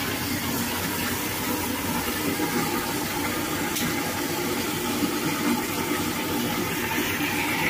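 Water running steadily, an even rush that goes on without a break.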